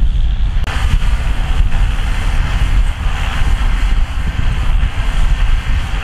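John Deere tractor's diesel engine running under load, pulling a disc harrow through dry soil: a steady, heavy low rumble with a noisy hiss above it. The sound changes abruptly, turning brighter, under a second in.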